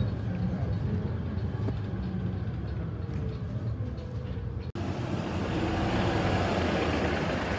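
Cabin sound of a Volvo B7RLE bus driving, its rear-mounted six-cylinder diesel running with a steady low hum. About two-thirds of the way through it cuts abruptly to the bus heard from the kerbside, its engine and tyres louder as it pulls past.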